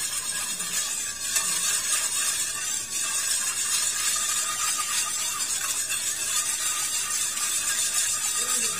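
Background music, with a wire whisk swishing through coconut milk in a metal wok.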